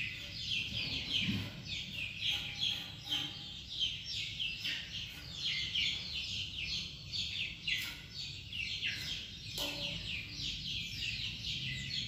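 Small birds chirping continuously, many quick, high, falling chirps overlapping in a busy chorus.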